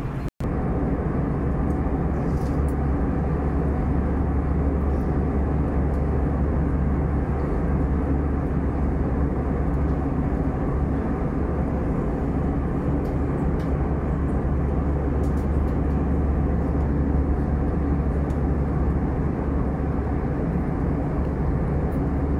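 Steady cabin noise of an Airbus A320 in flight: an even, low rumble of engines and rushing air.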